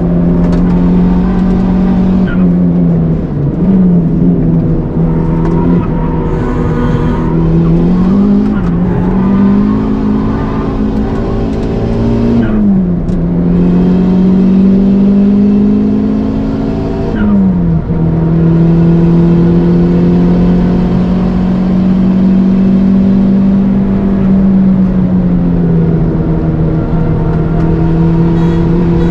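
Turbocharged four-cylinder engine of a modified Toyota Starlet Glanza V running hard on a lap, heard onboard. Its pitch drops sharply and climbs again about four times in the first 18 seconds as the driver shifts or lifts, then holds mostly steady at high revs.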